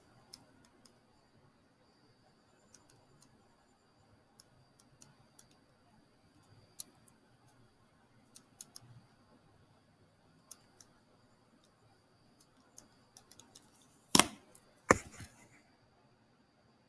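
Light, scattered clicks and taps of someone working at a desk, then two loud knocks less than a second apart near the end.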